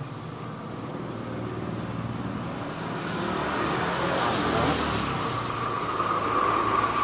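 A passing road vehicle, its noise growing steadily louder through the first half and staying loud near the end, with a steady tone coming in over it late on.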